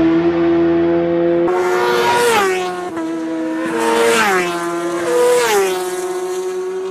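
High-revving racing motorcycle engines passing at speed. The engine note drops sharply in pitch three times as bikes go by, with an abrupt change in the sound about a second and a half in.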